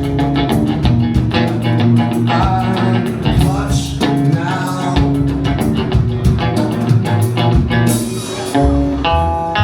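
Live band music: an instrumental passage of a rock song, with a busy, steady drum beat over bass and other pitched instruments.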